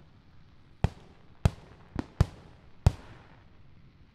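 Aerial firework shells going off: five sharp booms in about two seconds, each trailing off in an echo, then a quieter stretch near the end.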